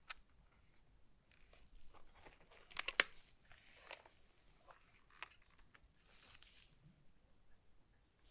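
Close handling of keyboard packaging: irregular crinkling and rustling with scattered sharp clicks and taps, the loudest a cluster of clicks about three seconds in.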